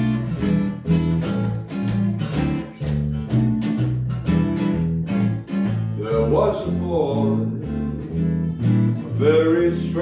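Acoustic guitar playing a steady picked chord pattern, with a voice beginning to sing over it about six seconds in.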